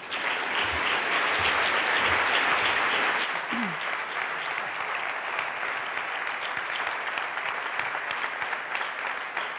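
Audience applauding, loudest in the first three seconds, then settling to a slightly lower steady clapping.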